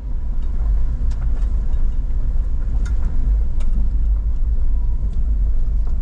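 Toyota driving along a dirt road, heard from inside the cabin: a steady low rumble of engine and tyres, with a few faint clicks.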